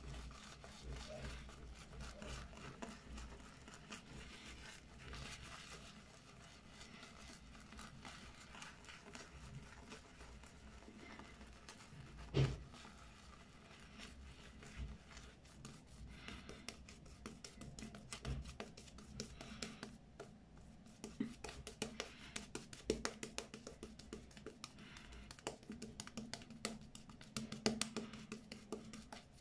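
Razor blade scraping through lathered stubble in many short, quick strokes during a wet shave, with a single sharp knock about twelve seconds in.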